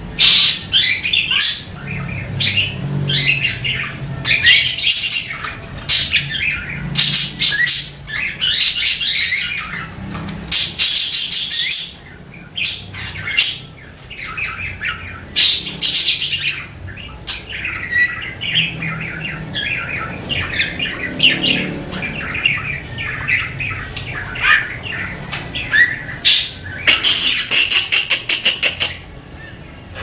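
Budgerigar singing a long, rolling warble of rapid chirps, squawks and clicks that runs on almost without a break, ending in a fast burst of clicking chatter near the end.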